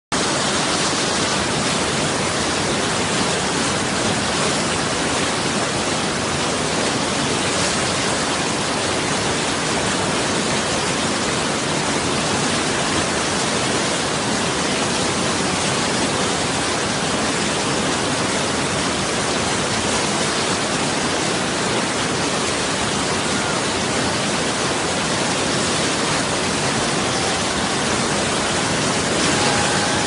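Whitewater rapids pouring over and around boulders: a loud, steady rush of churning water.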